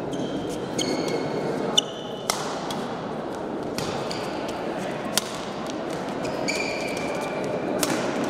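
Badminton play: several sharp racket-on-shuttlecock hits and court shoes squeaking on the floor, over a steady murmur of voices.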